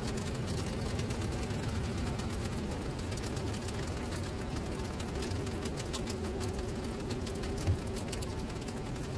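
Rain falling onto flooded paving, drops pattering and splashing into the standing water, over a steady low hum. A single low thump sounds about three-quarters of the way through.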